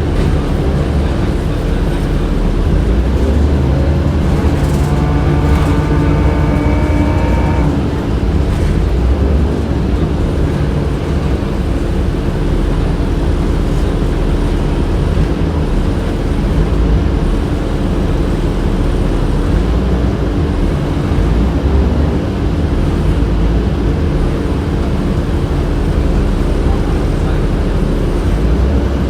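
Inside a 2007 Orion VII transit bus under way: a steady low rumble of the bus running on the road, with the steady hum of its HVAC system. From about three to eight seconds in, a whine rises slowly in pitch and then fades.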